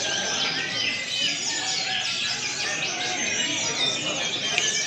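Many caged brown-chested jungle flycatchers (SRDC) singing at once: a dense, overlapping chorus of chirps, trills and short whistles that never pauses.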